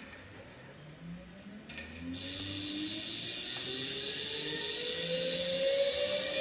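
Three-phase AC induction motor on a variable frequency drive speeding up, its hum rising steadily in pitch as the external potentiometer raises the drive frequency, with a high-pitched electrical whine that becomes much louder about two seconds in.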